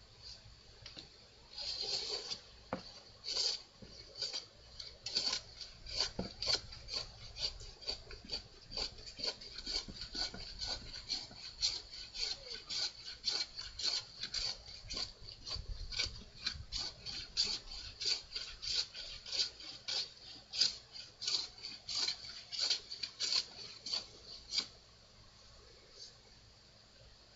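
A hand tool working wood in quick, repeated rasping strokes, about two to three a second. The strokes stop a couple of seconds before the end.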